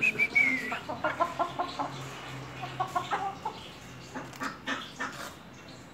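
Chickens clucking in short repeated calls, opened by a brief high call that falls in pitch. A few sharp clicks come near the end.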